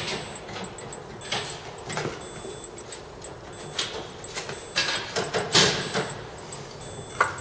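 Irregular clinks and knocks of metal parts and tools being handled in a vehicle's engine bay, with the loudest clatter about five and a half seconds in.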